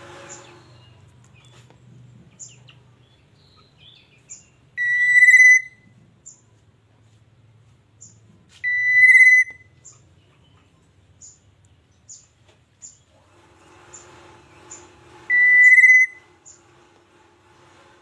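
Caged black-naped oriole calling: three loud, drawn-out whistled notes, each under a second and several seconds apart, with short high chirps repeating between them.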